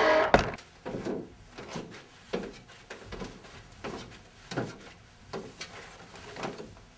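A door bangs shut just after the start, followed by a steady run of footsteps on the stairs and hard floor, about one step every three-quarters of a second.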